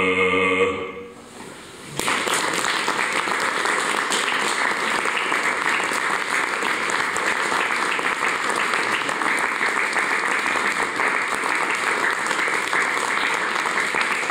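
A bass voice holds the final note of a song over digital piano, ending less than a second in. After a short hush, audience applause breaks out about two seconds in and continues steadily.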